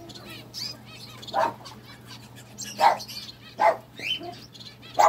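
A dog barking four times, a second or so apart, over faint chirping of small birds in the aviary and a steady low hum.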